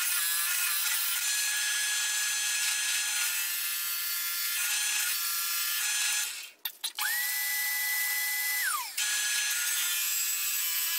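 Drill press running with a Forstner bit boring into plywood, a steady whine with the scrape of the cut. Around six and a half seconds it briefly cuts out with a few clicks, and then a single high whine rises, holds for about a second and a half, and falls away.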